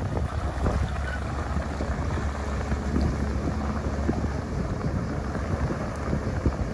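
Mercury outboard motor on a small speedboat running steadily as the boat pulls away, mixed with wind buffeting the microphone.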